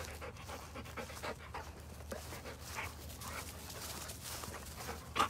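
A dog panting close by, a quick run of soft breaths, with a brief sharp noise just before the end.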